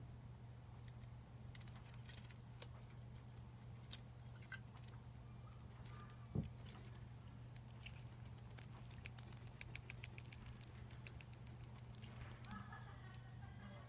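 Scattered light clicks and ticks from small parts and tools being handled during disassembly, over a steady low electrical hum, with a dull thump about six seconds in.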